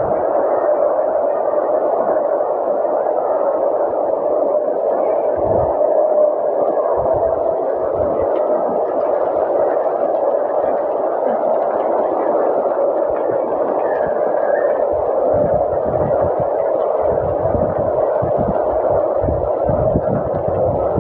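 Heavy rain falling steadily as a dense hiss, with strong wind gusting irregularly against the microphone as low rumbles.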